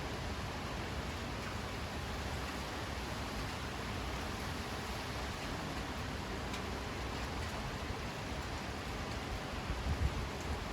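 Steady rain falling, an even hiss with a few faint drop clicks. Near the end come some low rumbling bumps.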